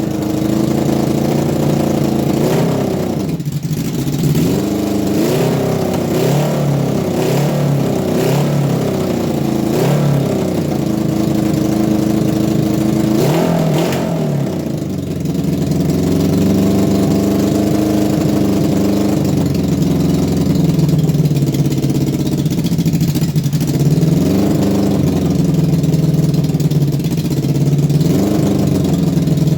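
1980 Honda CB750F's air-cooled inline-four engine running and revved up and down repeatedly as the transmission is tested through its gears. Its pitch dips briefly about 3.5 and 14 seconds in.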